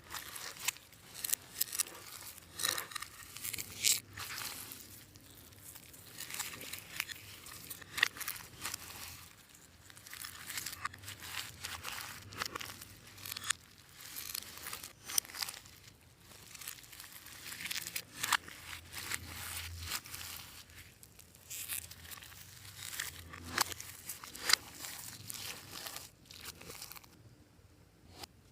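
Slime being squished and stretched by hand, giving an irregular stream of small crackles and clicks.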